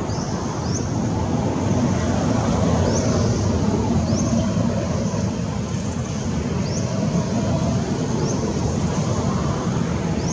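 Steady low outdoor rumble with short high chirps repeating every one to two seconds.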